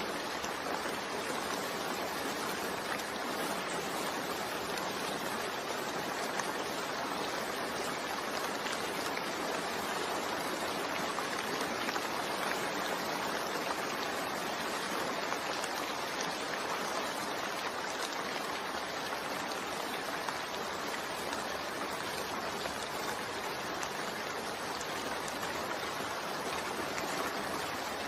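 Steady rain blended with white noise: an even, unbroken hiss with no separate drops or other events.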